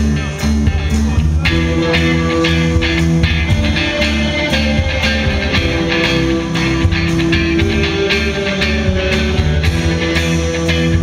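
Live rock band playing electric guitars, bass and drum kit, with long held notes over a steady drum beat. The sound turns fuller and brighter about a second and a half in.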